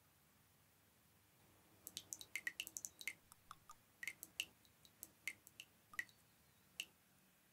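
Olive oil dripping from the lip of a frying pan into a small glass of oil: a quick run of small plinks about two seconds in, thinning to occasional single drips, the last one near the end.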